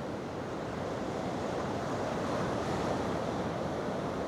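Ocean surf washing onto the beach, a steady rushing wash that swells slightly partway through, with wind buffeting the microphone.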